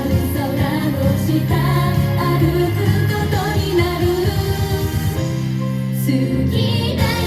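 J-pop idol song performed live: female voices singing over a backing track with a steady beat.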